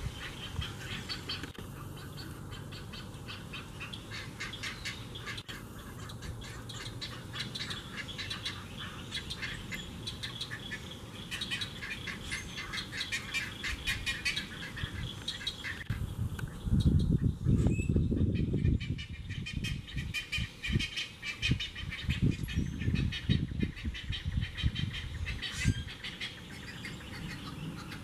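Great egret fledglings begging at the nest with rapid, chattering clicks, a dense ticking run that goes on almost without a break. Bouts of low rumble come in about 17 seconds in, the loudest part, and again from about 21 to 26 seconds.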